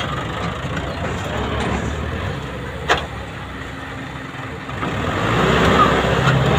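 Sonalika DI 60 RX tractor's diesel engine running under heavy load, hauling a trailer through soft ploughed soil, growing louder about five seconds in. A single sharp knock about three seconds in.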